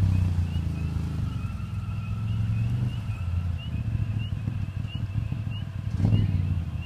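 Can-Am Maverick's Rotax 1000 V-twin with an aftermarket Two Brothers exhaust running at low revs as the side-by-side creeps through mud, with a short blip of throttle about six seconds in.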